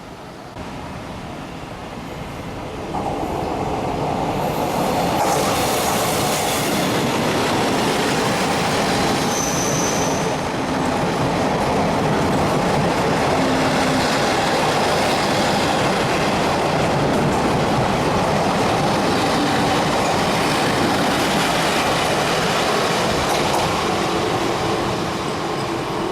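Taiwan Railways electric train passing close by: a steady rush of wheels on the rails that swells about three seconds in and holds, with a brief high thin tone about ten seconds in, then cuts off suddenly at the end.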